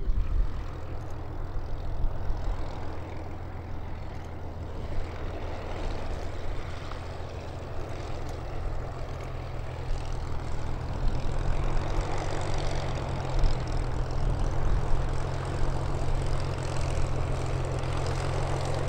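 Piston-engined propeller aircraft running steadily, its low engine drone growing louder from about halfway through.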